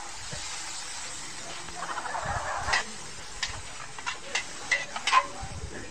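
Meat sizzling in a large metal wok over a wood fire, with the sizzle surging briefly about two seconds in. A metal spatula then scrapes and clanks against the wok about six times while stirring.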